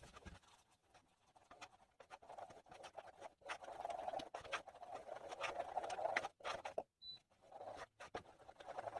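Wooden spoon scraping and stirring through thick, freshly set custard in a non-stick saucepan, in irregular strokes. A short high beep sounds about seven seconds in.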